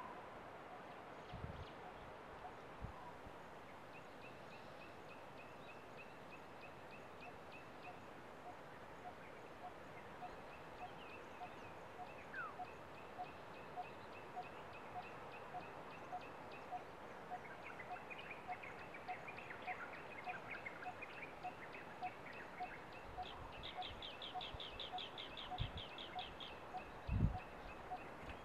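Faint forest ambience of birds calling: a short note repeated steadily about twice a second, with quicker high-pitched trills and a burst of chatter over it. A dull low thump sounds near the end.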